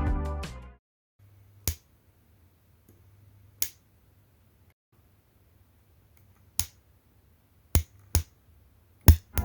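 Homemade spot welder built from a PC UPS firing single welds: six sharp snaps, a couple of seconds apart at first and then closer together, over a faint low hum.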